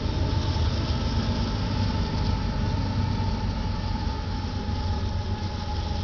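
Diesel-electric freight locomotives running as they roll past with a train of tank cars: a steady heavy low rumble of engines and wheels on rail, with a faint steady high whine.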